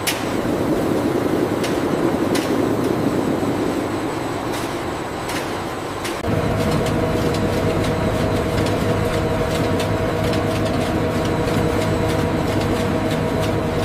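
Industrial machinery running, with scattered clicks and clatter over a rumble. About six seconds in, the sound changes to a steadier machine hum with several held tones.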